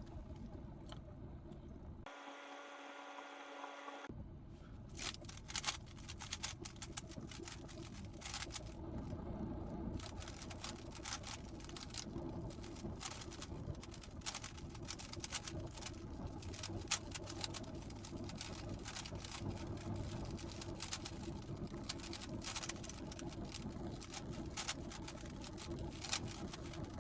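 GAN 15 speedcube being turned fast, a dense run of small plastic clicks and clacks from its layers as a blindfolded solve is executed; the clicking starts about four seconds in.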